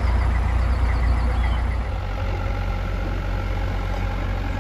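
Narrowboat engine running steadily at cruising speed, a low even drone that eases slightly about two seconds in.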